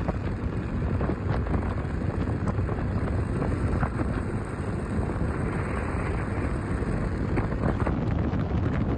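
Wind buffeting the microphone over the steady running and road noise of an RKS Newlight 125 Pro motorbike cruising at road speed.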